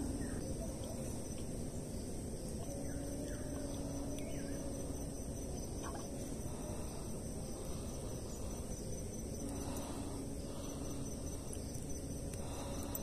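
Steady high-pitched insect trill over a low rumble, with a faint low hum that comes and goes twice.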